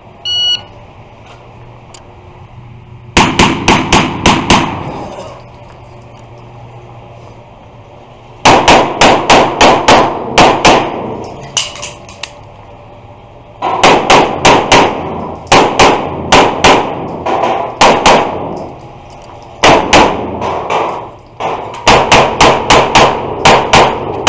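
A shot timer's start beep, then a semi-automatic pistol firing quick strings of shots from about three seconds in, in five bursts with short pauses between them. The shots echo hard off the walls of an indoor range.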